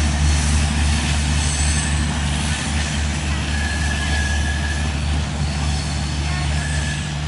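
LHB passenger train with a rear generator power car moving away at low speed: a steady rumble of the coaches on the rails with a constant low hum.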